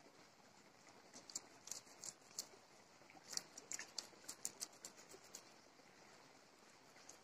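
A small knife scraping scales off a small fish: a run of short, crisp scrapes in two bunches, about a second in and again from about three seconds in, over faint background hiss.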